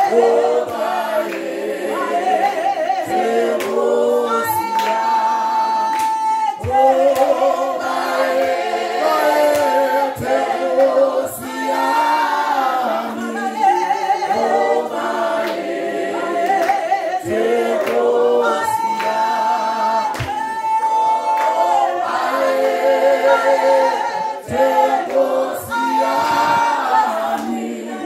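A small praise team of women's voices and a man's voice singing a worship song a cappella in harmony, in sung phrases with long held notes.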